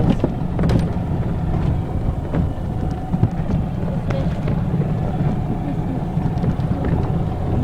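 Golf cart driving along, its motor running steadily, with a few short knocks and rattles.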